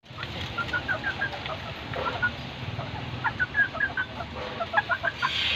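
Bantam chickens clucking in four short runs of quick, clipped calls.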